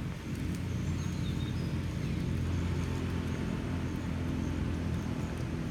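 Steady low outdoor rumble, with a few faint high bird chirps about a second in.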